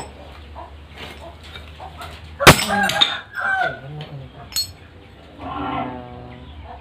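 Small steel pieces knocked and clinked against a steel block: one sharp, loud knock about two and a half seconds in, then lighter metallic clinks. Short clucking calls of a chicken sound in between.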